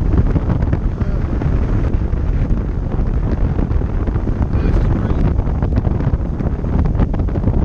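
Wind buffeting the camera's microphone: a loud, steady, gusting rumble.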